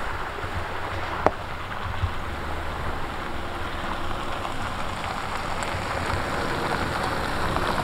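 Honda Ridgeline TrailSport pickup rolling slowly over a dirt and gravel trail, its tyres crunching and growing louder as it approaches, with a sharp click a little over a second in.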